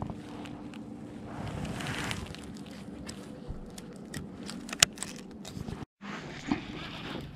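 Close handling noise from reeling in on a baitcasting rod and reel: sleeves and gloved hands rustle against the rod and reel, with scattered sharp clicks. The sound cuts out for a moment about six seconds in.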